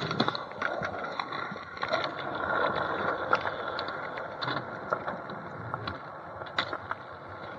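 Skateboard rolling on rough asphalt, a steady grainy rumble from the wheels, broken by several sharp clacks of the board.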